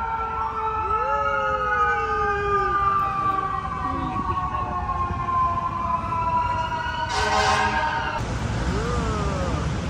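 Emergency vehicle siren wailing in slow falling and rising glides over street traffic, with a loud, roughly one-second blast about seven seconds in.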